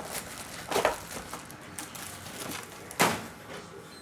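Trading card box and packs being handled and opened: soft rustling with two short knocks, about a second in and about three seconds in.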